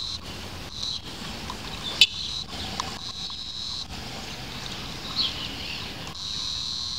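Distant Alsthom 9600 series diesel railcar pair approaching, heard as a faint low rumble under a high buzzing that comes and goes in stretches. A sharp click about two seconds in and a short bird call near five seconds.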